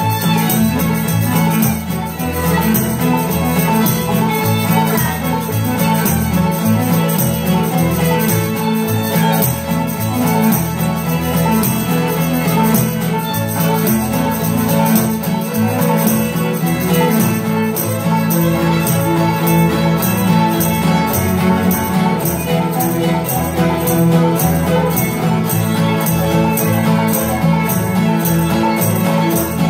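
Old-time string band playing an instrumental break: the fiddle leads over strummed acoustic guitar, mandolin and banjo with a steady beat.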